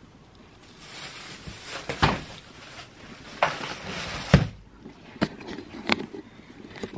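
Handling noise of a camera being picked up and moved: rustling and rubbing on the microphone with a few sharp knocks and bumps, the loudest about four and a half seconds in.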